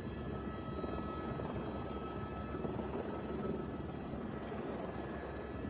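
Helicopter flying, a steady rotor and engine noise.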